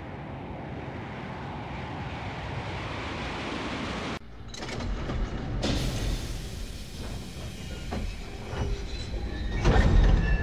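Jet aircraft engines and cabin noise heard from inside the plane on the ground, a steady rush. About four seconds in it cuts to a louder, deeper rumble with light rattles.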